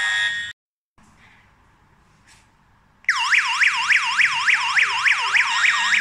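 Daytech TA03 alarm system's siren sounding an emergency alert, its pitch whooping up and down about four times a second. It cuts off about half a second in, stays quiet for about two and a half seconds, then starts again about three seconds in.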